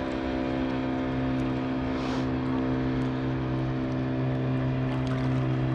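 Motorboat engine running with a steady, even drone that holds one pitch throughout.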